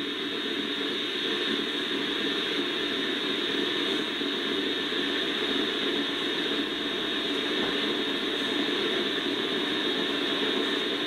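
Steady, unbroken hiss like static, even throughout, filling the slot in an Emergency Alert System test where the attention signal would sound.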